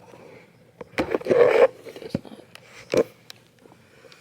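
Handling noise close to the microphone: scattered knocks and clicks, with a louder scraping rustle about a second in and another short knock near 3 seconds.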